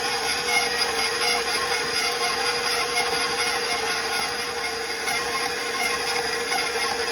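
Spiral dough mixer running at a steady speed, its motor humming with a constant tone while the dough hook churns biga into water in the bowl.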